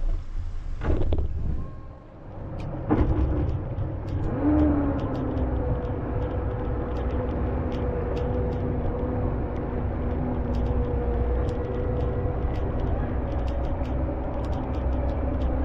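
Twin outboard motors on a towboat running under load, rising in pitch about four seconds in and then holding a steady drone while pulling a large motor yacht sideways off a dock against the current on a bridle.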